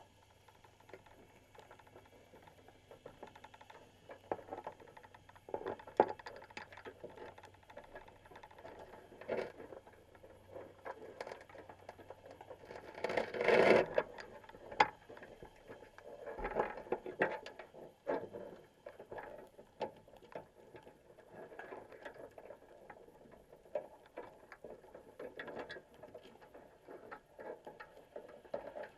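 Crabs moving about inside a wire crab pot, heard underwater: their shells and legs tick and scrape against the wire mesh and bait box in irregular clicks, with a louder scraping burst about halfway.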